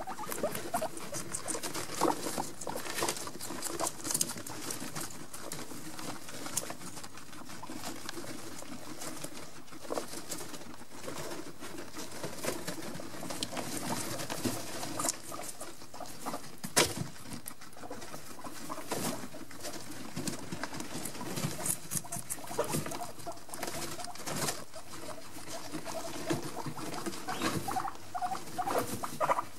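Guinea pigs chewing cucumber and shuffling through wood-shaving bedding: an irregular, continuous crackle of crunching and rustling clicks.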